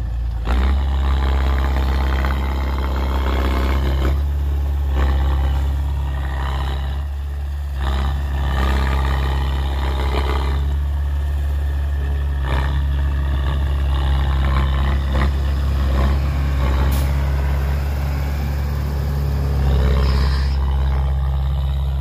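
Diesel engines of a Hyundai dump truck and a small bulldozer running at work, a steady low drone with repeated surges of harsher noise every second or two.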